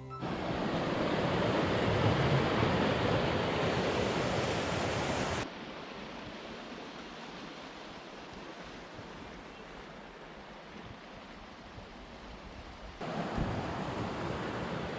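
Rushing water of a waterfall, a steady hiss and rumble. It cuts abruptly to a quieter take about five seconds in and jumps louder again near the end.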